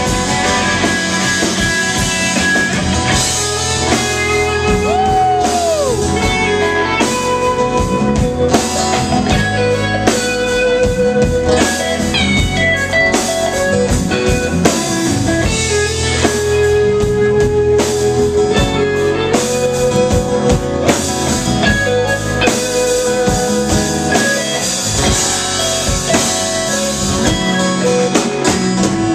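A live band plays instrumentally, electric lead guitar over acoustic guitar, bass guitar and drums. The lead guitar holds long notes and bends them, with a rising-and-falling bend about five seconds in and falling notes around twelve seconds.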